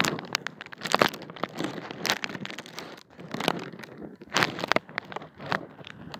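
Irregular crackling and rustling close to the microphone, from handling and movement.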